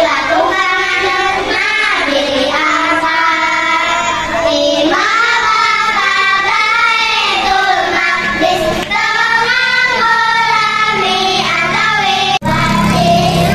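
A group of young children singing a song together in unison into microphones. Near the end the sound cuts out for an instant and the singing carries on.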